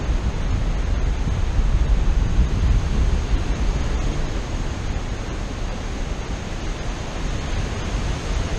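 Steady rush of wind buffeting the camera microphone in flight under a paraglider wing, a loud low rumble.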